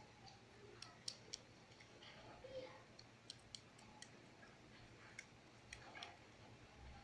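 Faint, irregular clicks and ticks in near silence, a dozen or so scattered sharp snaps.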